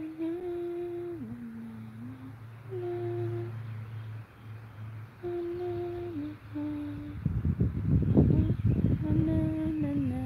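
A person humming a slow tune in short held notes that step up and down. From about two-thirds of the way through, wind buffets the microphone with a rough rumble, louder than the humming.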